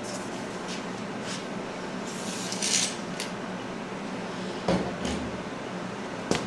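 A steady low hum of room equipment, with a few small clicks, a short scraping rustle about two and a half seconds in, and a sharper knock near the end: small handling sounds near the microphone.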